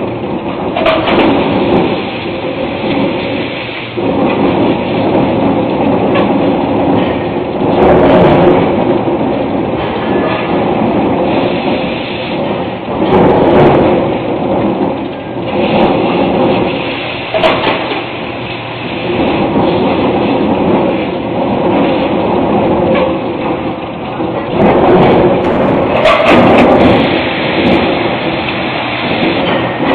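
Farina eccentric forging press hot-forging steel, its heavy strikes landing every few seconds over the steady clatter and hum of the forging line.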